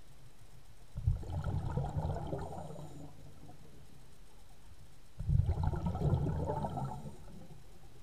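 A scuba diver exhaling through the regulator, heard underwater as two bursts of bubbles about four seconds apart, each lasting about two seconds.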